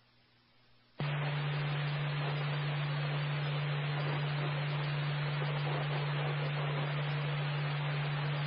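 Police radio scanner: near silence, then about a second in the squelch opens suddenly onto steady static hiss with a low hum, an open channel with no voice on it.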